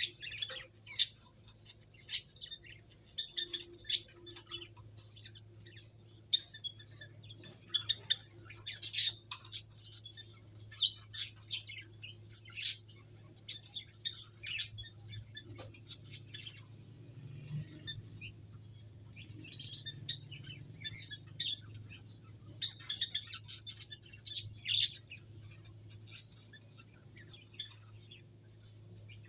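Small cage birds chirping: many short, high calls come in quick runs, with a lull around the middle, over a steady low hum.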